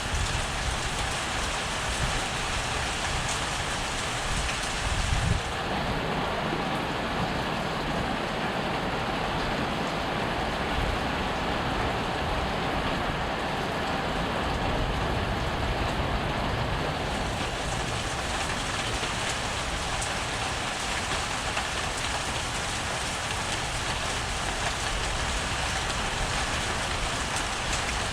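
Heavy rain pouring down steadily during a thunderstorm. From about five seconds in, the sound turns duller for roughly twelve seconds, then brightens again.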